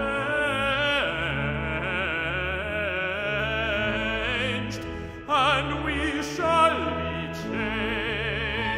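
Bass-baritone singing with a strong vibrato over low sustained organ notes. The voice drops out briefly about five seconds in, then comes back in loudly.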